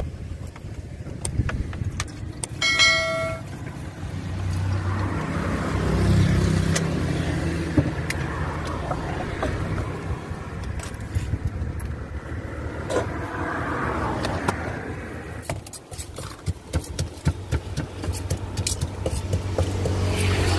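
Road traffic passing close by, a low vehicle rumble that swells and fades a few times, mixed with frequent clinks and clatter of bowls and utensils. A brief beep sounds about three seconds in.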